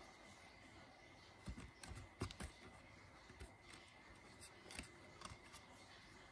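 Faint clicks and scrapes of hand saddle-stitching: needles and waxed thread drawn through pre-punched holes in leather, a few small sounds bunched about two seconds in and another near five seconds.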